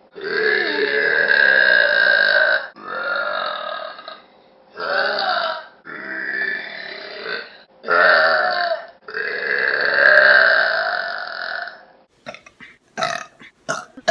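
A young woman burping: a series of about six long, loud burps in quick succession, several lasting two to three seconds, followed near the end by a run of short sharp clicks.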